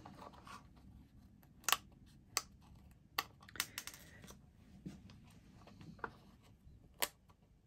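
Small metal brads (split-pin paper fasteners) being pushed through mat board and their prongs spread by hand, giving about eight sharp, irregularly spaced clicks and taps.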